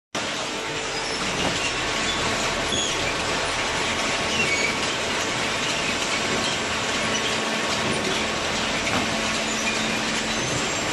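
Vertical hydraulic baler running steadily as it presses waste newspaper, a dense mechanical noise with scattered short, high squeaks.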